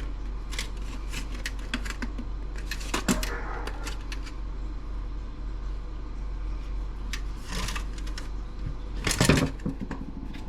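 Small metal and plastic parts from a laptop docking station clicking and clattering as they are handled and sorted, with the loudest clatter about nine seconds in, over a steady low hum.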